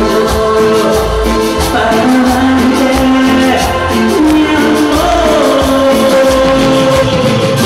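Loud Latin dance music with a singing voice over held instrumental notes and a steady bass beat.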